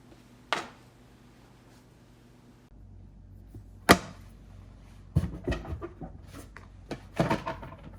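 Hard plastic disc golf discs knocking and clacking against each other as they are handled and set down, a scatter of sharp clacks with the loudest just before the middle and small clusters toward the end.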